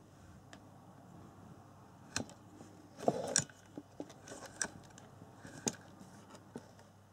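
Light handling noises: a few sharp clicks and knocks, with a brief louder rustle about three seconds in.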